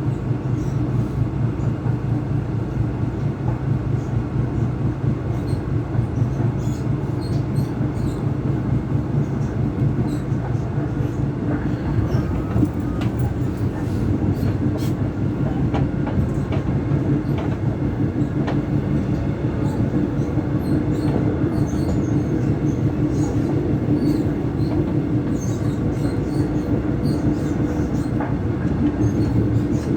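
Taiwan Railway EMU600 electric train running at steady speed, heard from inside a trailer car: a constant rumble of wheels on rail with scattered clicks. Over it comes motor-car traction noise relayed through the trailer car's PA speakers, which were left switched on.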